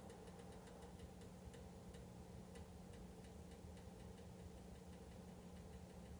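Faint, fairly regular ticking from an electric heater over a low steady hum: the heater's abnormal noise.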